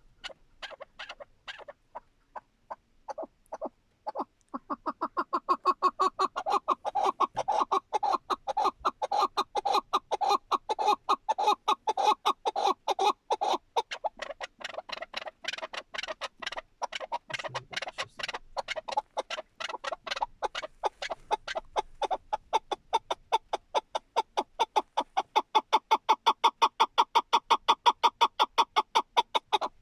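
Chukar partridge calling: a few spaced clucking notes, then from about four seconds in a long, rapid run of chuck notes, about four a second, louder again near the end.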